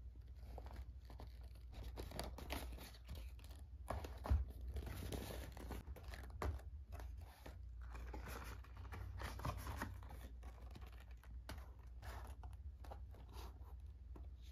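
Cardboard and paper packaging being handled and opened: irregular rustling, crinkling and tearing with small taps as small paper boxes are lifted out and set down on a table, and one sharper knock about four seconds in.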